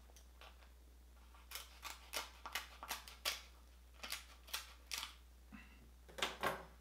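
Kitchen scissors snipping through a crab leg's shell: a run of short, sharp snips, about three a second, starting a second and a half in, with the loudest snips near the end.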